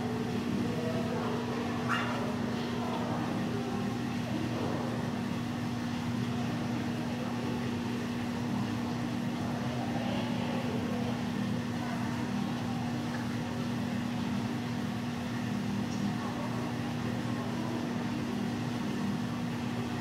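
Steady low mechanical hum, like ventilation or pump machinery, with faint voices in the background and one brief sharp sound about two seconds in.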